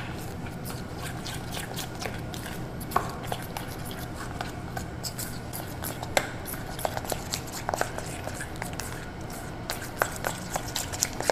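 Spoon stirring a thick chocolate mixture in a stainless steel bowl: soft scraping with scattered light clicks of the spoon against the metal, more frequent in the second half, over a faint steady low hum.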